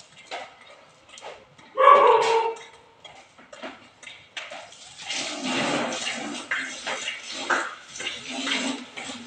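Burning straw crackling with scattered pops, then a louder, uneven rushing of the fire from about halfway. A dog barks once about two seconds in.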